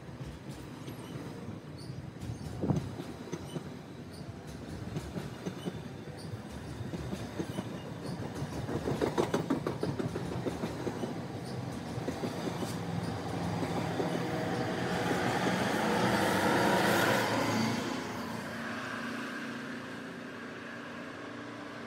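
GO Transit bilevel commuter train running past along the platform, its wheels clicking over the rail joints about halfway through. The rushing noise then builds to its loudest near three quarters of the way in and eases off toward the end.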